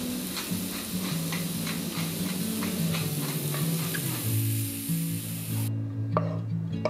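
Mixed vegetables sizzling as they stir-fry in a nonstick frying pan, with quick taps and clicks of a wooden spoon turning them. The sizzle cuts off suddenly near the end, leaving a few sharp clicks of the spoon against the pan.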